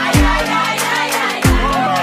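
Pop music with a steady beat and a deep bass that slides sharply down in pitch twice, with melodic lines gliding above it.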